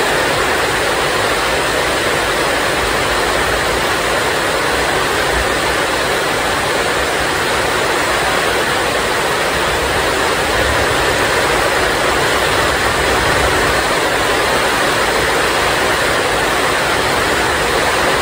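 Heavy rain pouring steadily onto roofs and the ground, a dense, even hiss without let-up.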